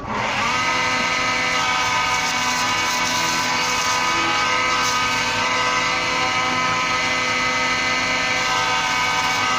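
A workshop power machine running steadily, a motor whine with several fixed tones that holds level throughout.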